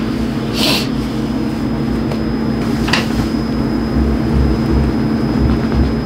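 Steady low hum of room air conditioning, with two short hisses, one just under a second in and one about three seconds in.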